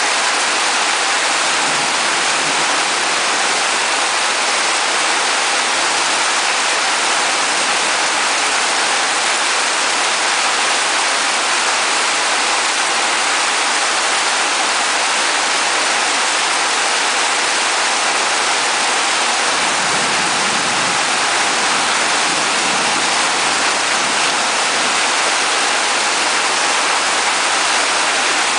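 Heavy rain pouring steadily onto a wet stone-paved courtyard, a dense, even hiss.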